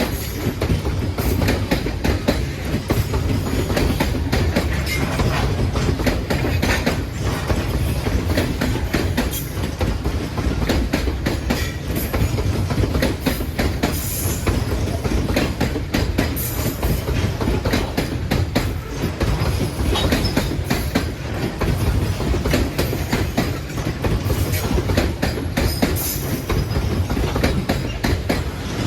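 Freight train wagons rolling past close by, their wheels clattering and clicking steadily over the rails, with brief high wheel squeals now and then.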